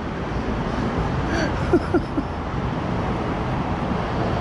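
Steady rumble of road traffic, with a few brief squeaky chirps about a second and a half to two seconds in.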